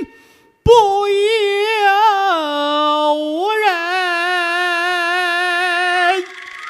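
A high Peking opera melody of long held notes with a strong, even vibrato. It breaks off briefly near the start and comes back in on a sharp knock, slides down about two seconds in, rises again a second later, and falls away near the end, where a few light knocks sound.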